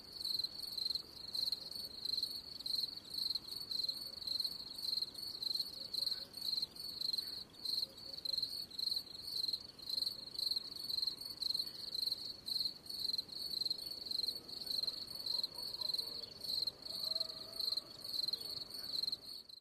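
Cricket chirping steadily in a regular, high-pitched rhythm of about two chirps a second.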